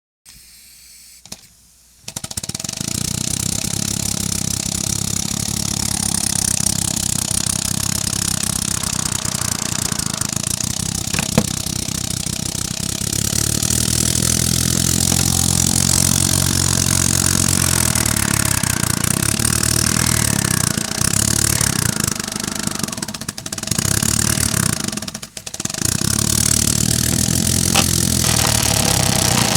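3D-printed compressed-air piston engine running, with air exhaust hissing and a rapid mechanical beat whose pitch shifts as the engine speeds up and slows. It starts about two seconds in and twice drops out briefly near the end.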